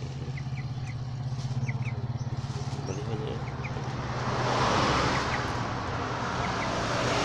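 An engine running steadily nearby with a fast low throb, joined by a swell of rushing noise about four seconds in. A few faint short high chirps sound over it.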